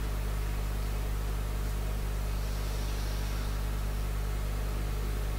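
Steady low electrical hum with an even hiss from the microphone and sound system, unchanging throughout.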